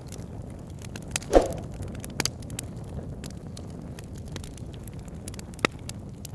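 Wood fire burning in a fireplace: a steady low rumble with scattered crackles, a loud pop about a second and a half in, and sharp snaps a little later and near the end.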